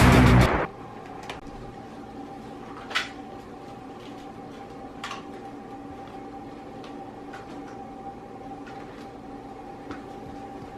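A loud burst of noise cuts off about half a second in, leaving a steady hum with a few faint, scattered clicks.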